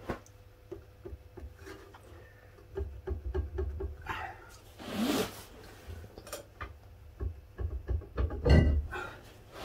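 Rear drum-brake adjuster on a 1956 Ford Consul Mk1 being wound out by hand: a run of light clicks, then knocks of metal being handled. There is a short rising creak about five seconds in and a louder knock near the end.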